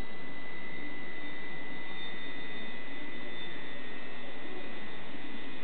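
Steady hum with a high whine over an even hiss, from the magnetic stirrer drive of a stainless steel liquid preparation vessel running and churning water in the vessel.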